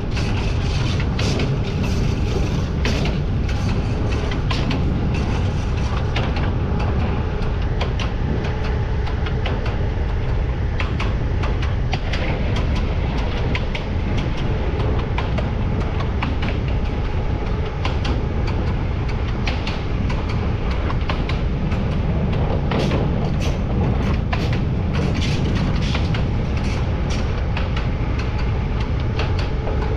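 Freight train hauled by a Siemens Vectron electric locomotive rolling along at speed: a steady rumble of wheels on rails, broken by frequent irregular sharp clicks, with a faint steady hum underneath.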